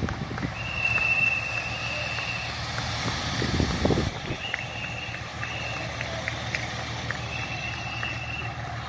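Race cyclists passing, with a louder rush of bikes about three and a half seconds in, over a steady engine hum. Repeated long, high whistle blasts, typical of a race marshal warning riders of a traffic island, sound throughout.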